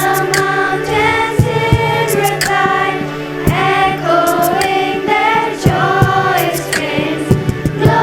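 School choir singing in harmony, over a steady low held note and sharp percussive beats.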